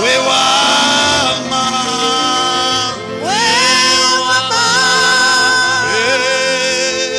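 Gospel worship song: a voice sings long held notes that slide up into pitch, over steady sustained instrumental backing.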